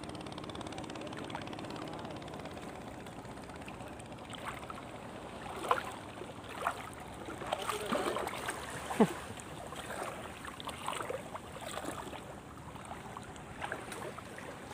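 Water lapping and splashing against a small boat, with a few sharp splashes or knocks between about five and ten seconds in. A steady engine hum fades out over the first couple of seconds.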